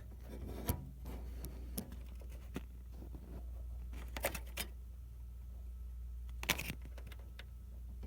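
Scattered light clicks and rattles of computer parts being handled while an IDE cable is fitted, over a steady low hum.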